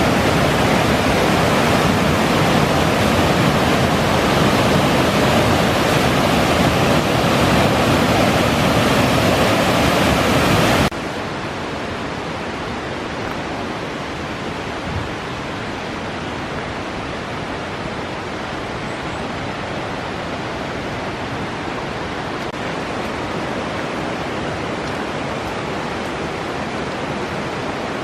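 Rushing water of a storm-swollen mountain stream, running high after a typhoon's rain: a loud, steady hiss. About eleven seconds in it cuts suddenly to a quieter, duller rush.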